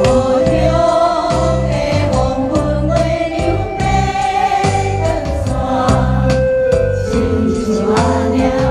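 Singing with instrumental accompaniment: a sung melody over a steady, rhythmic bass line.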